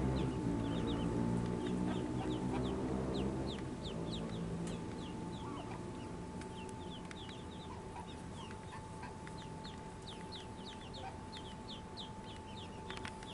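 Mallard ducklings peeping: many short, high, falling cheeps throughout. A low hum is the loudest sound for the first three or so seconds, then fades.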